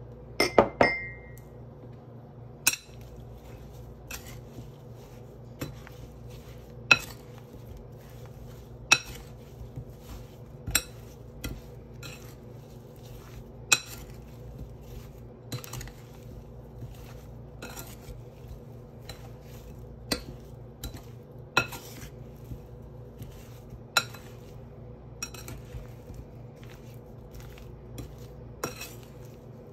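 A spoon mixing sliced strawberries in a glass mixing bowl, knocking against the glass in irregular clinks every second or two. A quick run of ringing clinks comes about half a second in.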